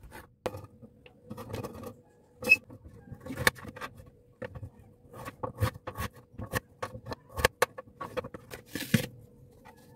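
Kitchen knife slicing carrot and then chayote into strips on a plastic cutting board. Irregular sharp taps come each time the blade meets the board.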